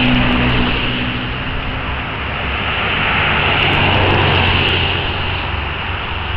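Road traffic on a wet, slushy road: a pickup truck drives past with engine hum and tyre hiss, and a second swell of engine and tyre noise follows about three seconds in.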